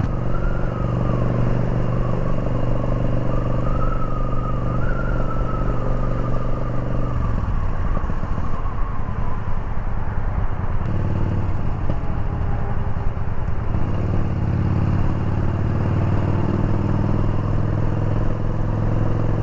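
Yamaha Bolt's air-cooled V-twin running under way in slow traffic. It holds a steady note, goes rough and uneven for several seconds about midway, then settles back into a steady note.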